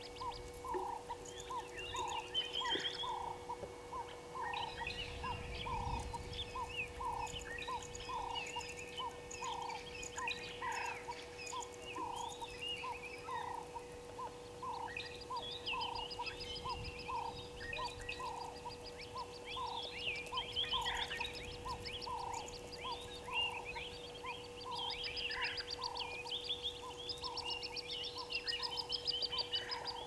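Wild birds chirping and chattering in the bush, with a low note repeated steadily a little more than once a second beneath them and a faint steady hum. A rapid high ticking trill joins in about halfway through.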